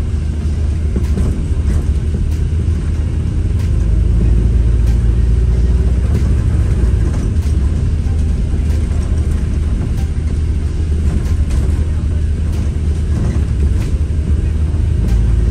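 London bus in motion, heard from on board: a steady low engine and road rumble that grows a little louder about four seconds in. A faint tick repeats about every two-thirds of a second.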